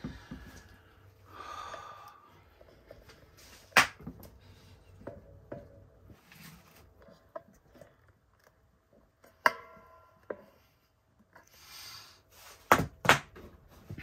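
Unpacking and handling a tabletop electric burnout furnace: scattered sharp knocks and taps, with soft rustling between them. Two loud knocks come close together near the end.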